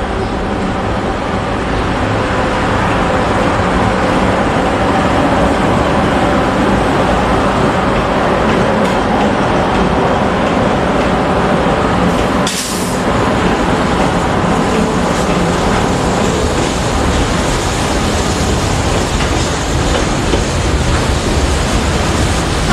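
Two KiwiRail EF-class electric locomotives passing close by at speed with a steady electric hum, followed by container wagons rolling past with wheels clicking over the rail joints. A short burst of hiss comes about halfway through.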